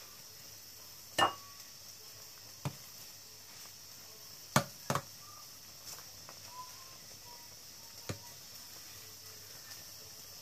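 A metal ladle clinking against a stainless steel stockpot while foam is skimmed off simmering beef broth: about five sharp clinks, two of them close together near the middle, over a faint steady hiss.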